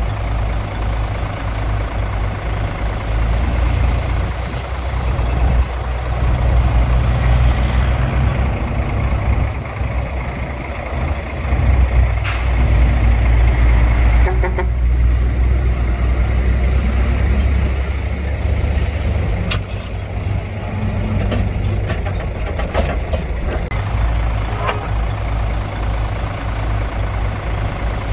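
Heavy diesel earthmoving machinery working: a deep, steady engine rumble, with a few sharp clanks now and then.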